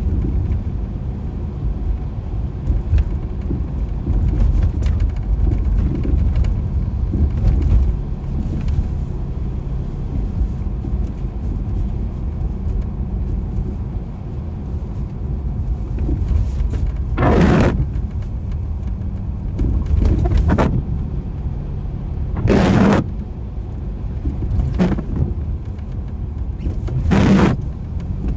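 A car driving on a wet road at night, heard from inside the cabin as a steady low rumble of tyres and engine. Four brief louder swishes come in the second half, a few seconds apart.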